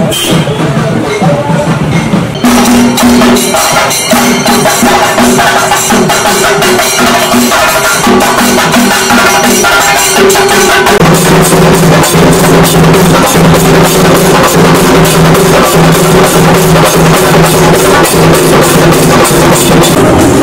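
Music with a fast, steady percussion beat over held low notes, louder and denser from about two seconds in.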